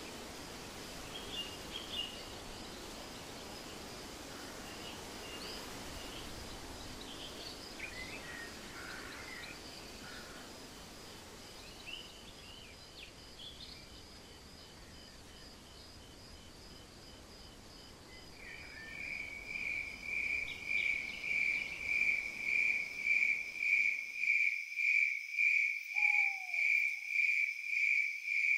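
Outdoor evening ambience: a soft hush with scattered bird chirps gives way, about two-thirds through, to crickets chirping in a steady pulsing rhythm, nearly two chirps a second. The low background hush drops out shortly after, and one short falling call sounds near the end.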